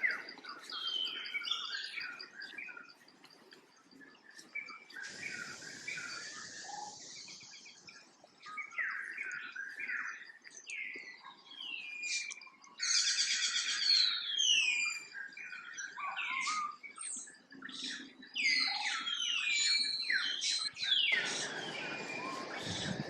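High-pitched chirping and squeaking animal calls, many of them short downward glides, coming again and again and loudest about halfway through, with a brief rustle about a fifth of the way in.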